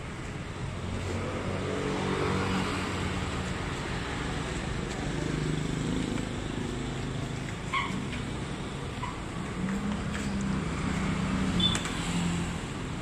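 Street traffic, with engines running and passing, heard as a steady background, with a couple of light clinks about eight seconds in and near the end.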